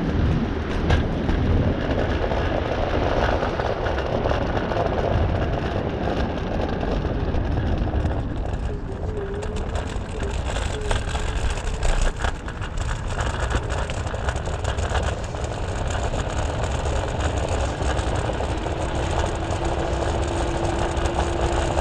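Wind rushing over the microphone and road rumble from a moving electric scooter: an even, unbroken noise. A thin steady whine comes in near the end.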